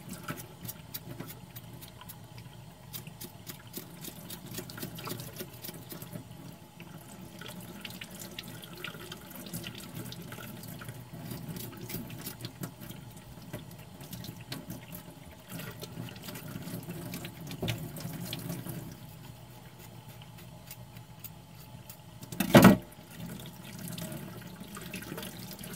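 Kitchen tap running into a stainless-steel sink as raw pig's feet are washed under it, with small clicks and knocks of handling throughout. One loud clunk near the end.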